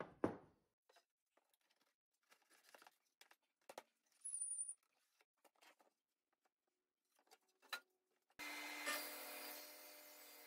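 Faint workshop handling of wood: a knock, then scattered taps and scrapes as a timber is fitted into the slotted post. Near the end a steady machine hum with hiss comes in abruptly.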